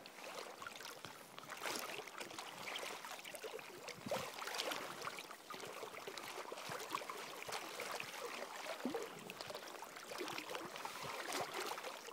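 River water lapping and trickling close by: a steady wash of small ripples with many little splashes and clicks scattered through it.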